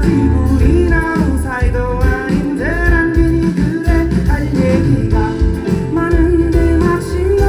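Live band music with a male lead singer: sung vocal lines over a heavy bass and drum backing.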